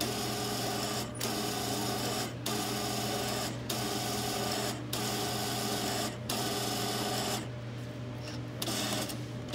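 A self-checkout's thermal receipt printer feeds out a long receipt with a steady mechanical whir. It runs in about six stretches of a second or so, each with a brief pause between, and stops about seven seconds in. A fainter whir follows near the end.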